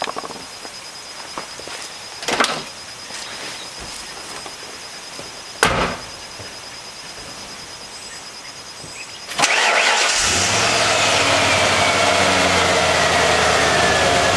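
Two short knocks, then about nine seconds in the 1996 Ford Bronco's 351 Windsor (5.8 L) V8 cranks briefly, catches and settles into a steady idle through its stock exhaust and long factory muffler. A whine falls slowly in pitch as it settles.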